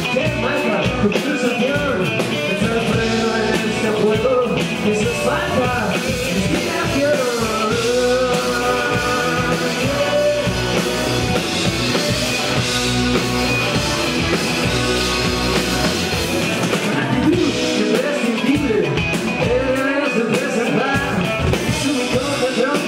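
A rock band playing live: electric guitars over a drum kit, at a steady, loud level throughout.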